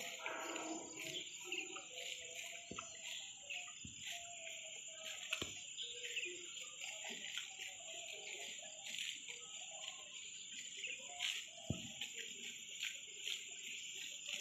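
Steady high insect drone, with scattered short chirps and a few sharp clicks.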